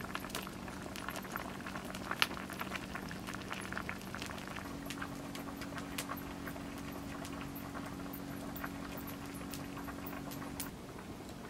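Hot pot simmering over a wood campfire: steady bubbling with dense, irregular crackles and pops from the fire, over a faint low hum.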